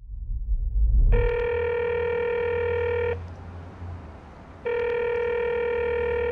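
Telephone ringback tone on an outgoing call: two steady rings of about two seconds each, over a low hum. A low rumble comes before the first ring, about a second in.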